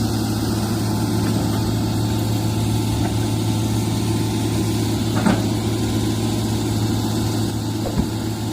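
Excavator's diesel engine running steadily with a deep, even hum. A short sharp knock comes about five seconds in, and a smaller one near the end.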